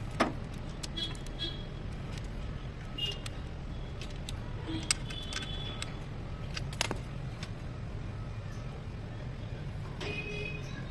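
A few sharp metallic clinks and taps, some ringing briefly, the loudest near the start and about five and seven seconds in, over a steady low hum.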